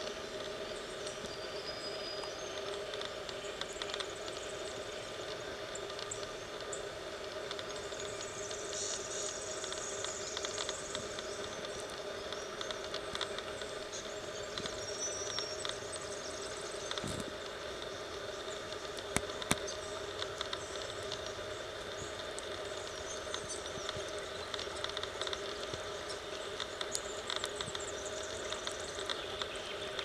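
A river flowing steadily over a shallow riffle, with scattered short, high bird calls, more of them in the first half. A few sharp clicks a little past halfway are the loudest moments.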